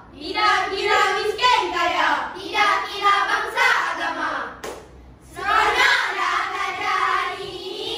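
A group of schoolchildren chanting in unison in a choral speaking (bicara berirama) piece, their massed voices going in a rhythmic, half-sung delivery, with a short pause a little before halfway.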